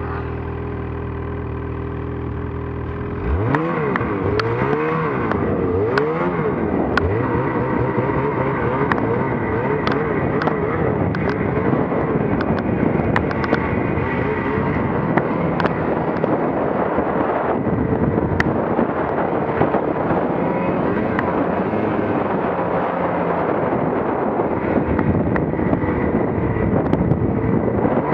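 Snowmobile engine idling steadily, then opened up about three seconds in and revving up and down in swooping pitch under load as the sled rides through deep snow.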